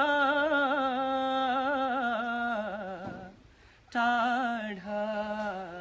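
A man singing a Nepali song unaccompanied. He holds a long note with vibrato that sinks slightly in pitch, breaks off, then opens a second held phrase about four seconds in.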